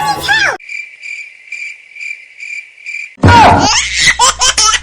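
Toy microwave's electronic beeping: a high tone pulsing a little over twice a second for about two and a half seconds. It stops suddenly and loud child laughter follows in quick repeated bursts.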